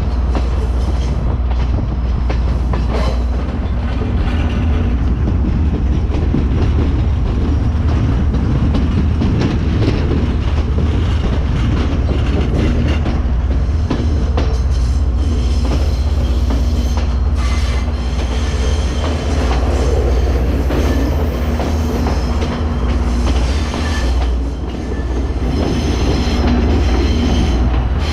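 Passenger train running along the rails: a steady rumble of wheels on track with scattered knocks, and thin high wheel squeals in the later half.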